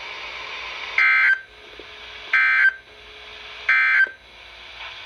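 Emergency Alert System end-of-message data tones from a NOAA Weather Radio broadcast: three short identical bursts, each about a third of a second long and spaced about 1.3 s apart, over steady radio hiss. They signal the end of the alert message.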